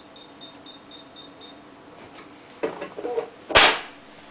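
Canon BJC-5000 inkjet printer beeping: a quick run of about eight short high beeps in the first second and a half. Then plastic clattering, and a short loud clunk as the printer's top cover is shut, the loudest sound, about three and a half seconds in.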